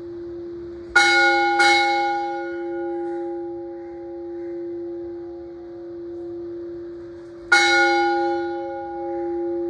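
Temple bell struck twice in quick succession about a second in and once more near the end, each strike leaving a long ringing hum that carries on between strikes, swelling and fading slowly.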